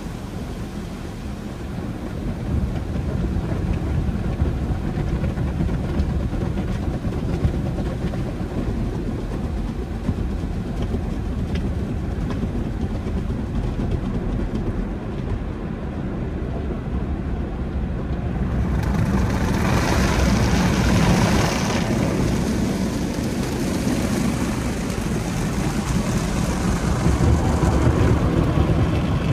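Conveyor car wash tunnel equipment running: a steady low rumble, joined about 19 seconds in by a louder hiss.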